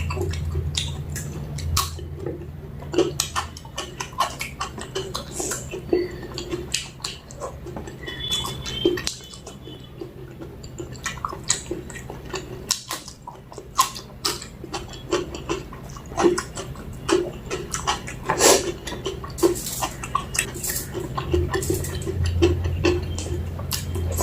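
Close-up eating sounds: irregular chewing and mouth smacks mixed with light clicks of a plate, as mutton curry with rice is eaten.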